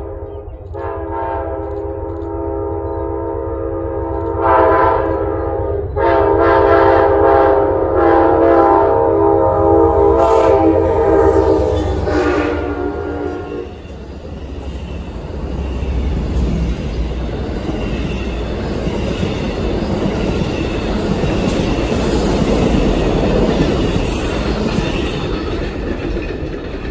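Locomotive air horn sounding a long blast, a short one, then a long one, the last held until about halfway through. After it the train rolls past with its wheels clattering over the rails.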